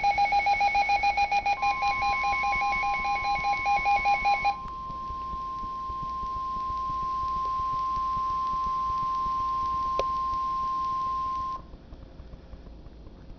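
NOAA Weather Radio emergency alert. Rapid pulsing electronic beeps run for the first four and a half seconds. From about a second and a half in they are overlapped by the steady 1050 Hz Warning Alarm Tone, which then sounds alone until it cuts off about eleven and a half seconds in, leaving faint radio hiss. The tone signals that a warning broadcast follows, here a severe thunderstorm warning.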